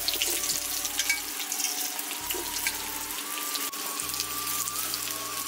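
Potato wedges frying in hot mustard oil in a kadhai: a steady sizzle with fine crackling.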